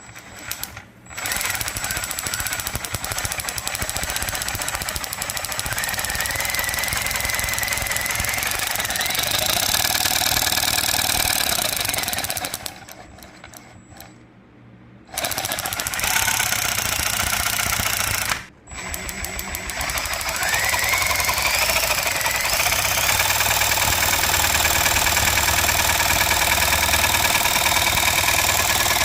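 The ZR4 engine firing and running with a rapid, jackhammer-like clatter. It cuts out twice, once for a couple of seconds and once only briefly, and picks back up each time. Its pitch rises as it revs up.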